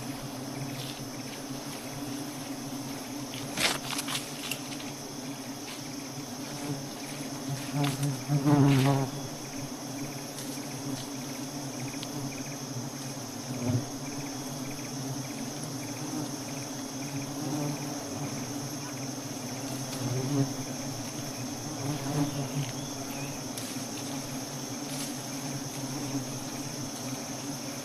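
Honeybees buzzing around the comb in a steady hum, with a constant high-pitched insect trill behind it. A few louder rustles and knocks come through, the biggest about eight seconds in.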